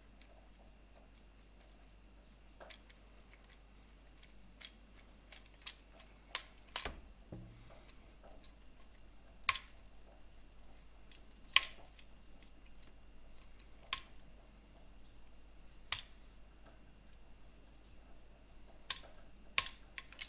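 Small screwdriver driving a metal screw into a metal model arm joint: about eight sharp clicks, a second or two apart, as the screw and tool shift against the metal parts.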